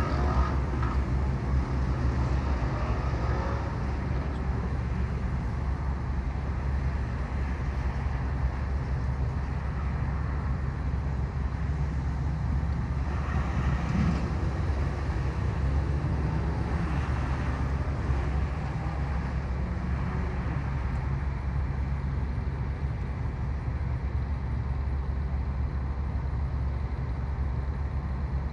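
Steady low rumble of outdoor background noise, even throughout, with a few faint brief higher sounds over it.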